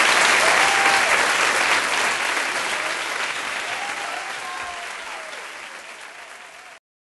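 Audience applause with a few cheering calls over it, fading out steadily and then cutting off abruptly just before the end.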